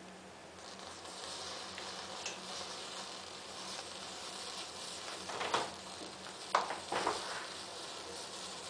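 A chain of matchstick heads igniting one after another, giving a steady fizzing hiss from about half a second in. A few louder crackles come a little past halfway.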